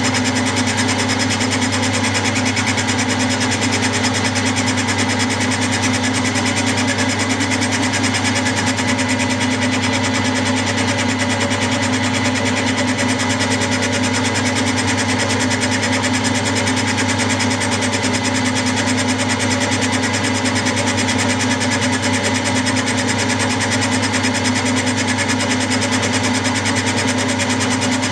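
Milling machine running steadily, a 60-degree dovetail cutter taking a cut along the ways of a cast-iron model lathe bed.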